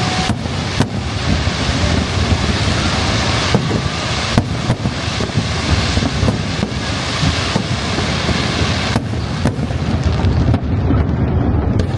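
Fireworks display: a continuous deep rumble of bursts, with a sharp bang every second or two.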